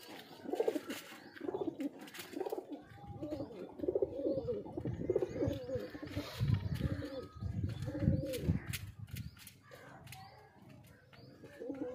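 Domestic pigeons cooing, a run of repeated coos that lasts about nine seconds, then a pause and one more short coo near the end.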